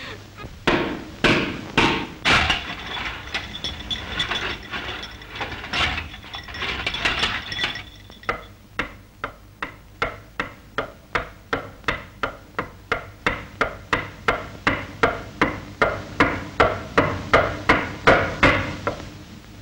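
Irregular knocks and clatter, then a steady run of sharp knocks, about two or three a second, growing louder.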